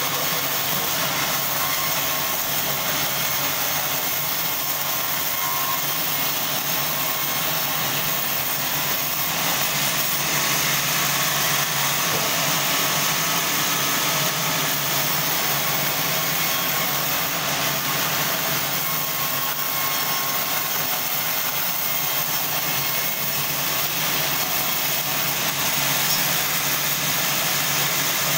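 Sawmill band saw running with a steady, unbroken machine noise.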